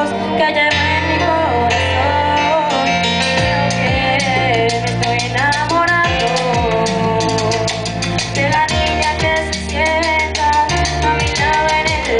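Male singer singing live into a handheld microphone over a full musical accompaniment with bass and a steady drum beat, the beat growing busier about halfway through.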